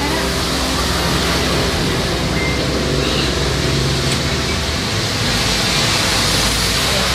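Steady, even rushing noise with a faint low hum underneath.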